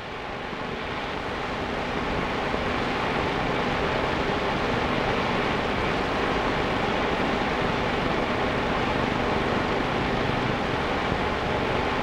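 Steady rushing noise with a faint low hum, swelling up over the first two seconds and then holding level.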